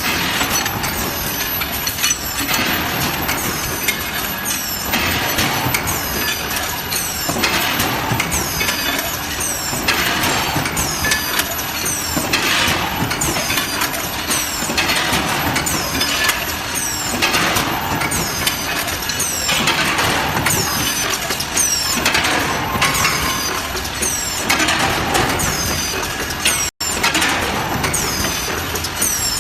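Industrial handling robot arm running through a repeating motion cycle: a surge of mechanical noise about every two and a half seconds, with short high-pitched falling whines from its drives. The sound cuts out for an instant near the end.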